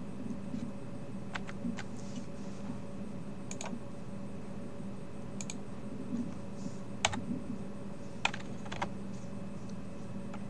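Single key presses on a computer keyboard, about eight separate clicks spaced a second or more apart, the sharpest about seven seconds in, over a steady faint hum.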